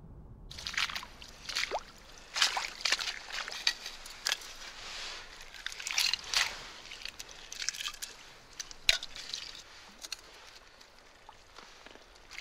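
Shallow seawater sloshing and splashing in irregular bursts, beginning abruptly about half a second in and thinning out towards the end.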